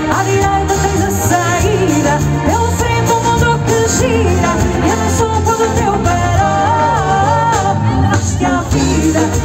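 Live pop band playing: a woman singing lead over electric guitars, bass, drums and keyboards, with the sound picked up from the audience.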